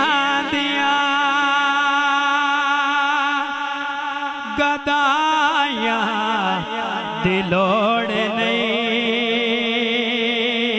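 A male naat reciter sings long, drawn-out melismatic notes of a Punjabi qasida without words, his voice wavering in pitch. A steady lower drone of voices runs beneath.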